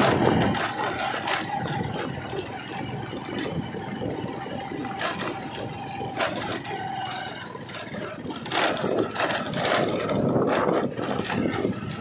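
Diesel engine of a JCB 3DX backhoe loader running as the machine drives over a rough, potholed road, with rattling and clattering from the body. A steady whine runs through the first half.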